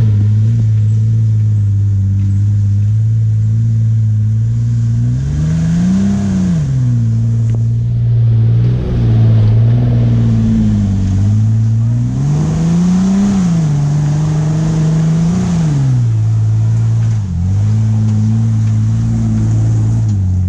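Jeep Wrangler engine running at low speed off-road, its steady drone rising in pitch about three times as the throttle is pressed and falling back each time.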